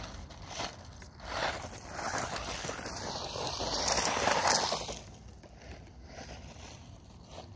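RC car driving over loose gravel and dirt, its tyres crunching and scraping. It grows louder as it comes up close to the microphone about four seconds in, then drops away suddenly.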